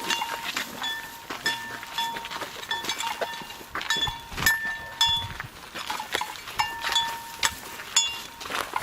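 A bell clanking irregularly: many short, ringing strikes, each starting with a knock.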